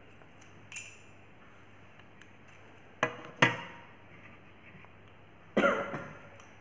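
Sharp knocks and clinks of a tea cup and glass bangles being handled: a faint tap under a second in, two sharp knocks close together about three seconds in, and another knock with a short ring near the end.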